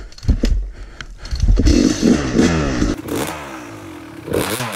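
Yamaha YZ250 two-stroke dirt bike engine revving up and down repeatedly as the bike rides over snow, with a few knocks and clattering in the first second.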